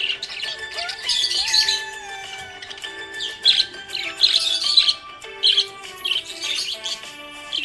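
Budgerigar chirping repeatedly over background music.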